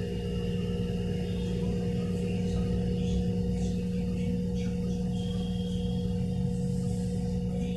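LG front-load washing machine in its spin cycle, the drum and motor running at speed with a steady hum and whine of constant pitch over a low rumble.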